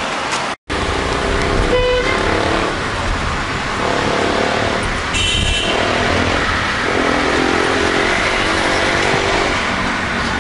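Inside a taxi's cabin in city traffic: steady engine and road rumble, with vehicle horns honking outside, a short toot about two seconds in and a higher-pitched horn about five seconds in.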